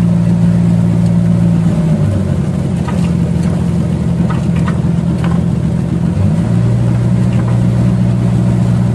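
Boat engine running under way over the rush of water, a steady low hum; about two seconds in its pitch drops as it slows, then it picks back up about six seconds in.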